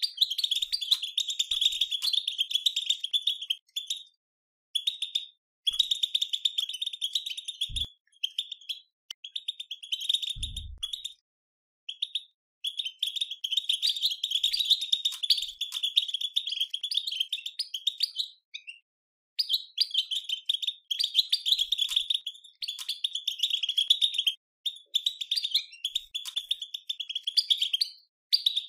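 European goldfinch twittering: rapid, dense chatter in bursts of a few seconds with short breaks, the 'batbata' chatter used to excite goldfinches into singing. Two soft low thumps come near the middle.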